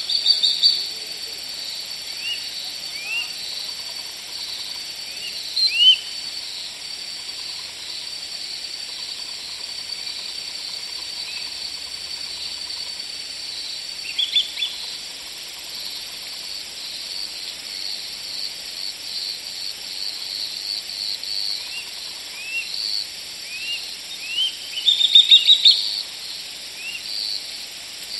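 Birds giving short chirps at irregular intervals over a steady, high-pitched insect drone. A quick run of chirps near the end is the loudest part.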